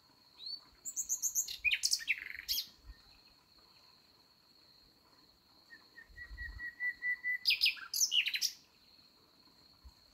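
Nightingale singing: two phrases of rapid, loud notes. The second opens with a run of repeated, evenly spaced notes that grows louder before breaking into fast trilled notes.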